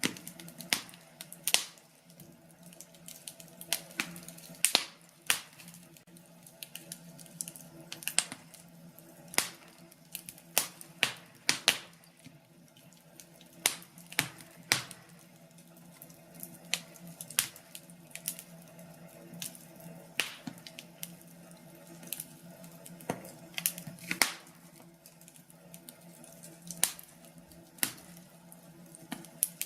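Wood fire burning in a fireplace, crackling with irregular sharp pops and snaps, over a faint steady hum.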